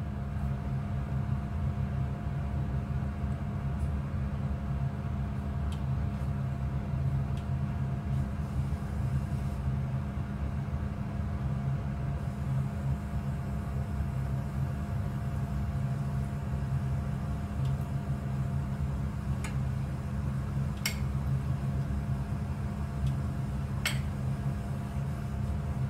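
Steady low mechanical hum with a fainter higher tone held above it, like an appliance or fan motor running. A few soft clicks come in the last several seconds.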